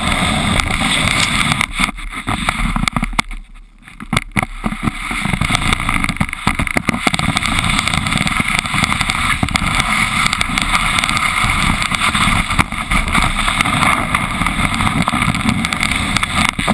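Wind buffeting an action camera's microphone while riding a snowboard down a ski slope, mixed with the board scraping over the snow. The rushing dies down briefly about three to four seconds in, then comes back.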